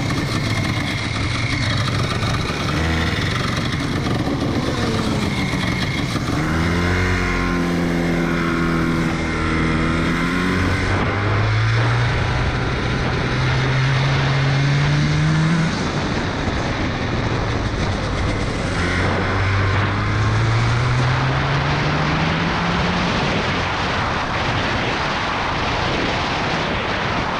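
Hirth two-stroke kart engine pulling away from a standstill and accelerating hard, its pitch climbing, falling back abruptly about halfway, then climbing again. In the last few seconds at speed a rushing wind noise covers much of it.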